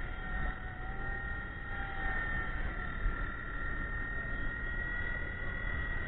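Small electric RC helicopter from the WLtoys V911 series in flight: a steady high motor-and-rotor whine whose pitch wavers slightly, with wind rumbling on the microphone.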